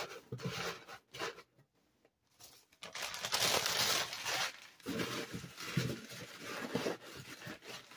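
Packing paper being crumpled and pushed into a cardboard box, in irregular rustling bursts with a short pause about a second in.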